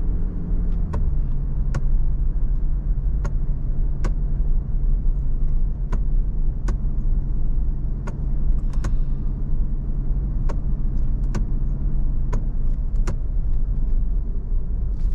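Lexus LX500d diesel SUV driving: a steady low engine and road drone, with sharp clicks about once a second.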